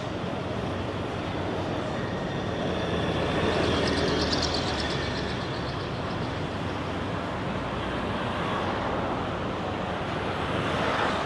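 Busy city street traffic at night: a steady roar of vehicles, with a louder vehicle passing about four seconds in and another building near the end.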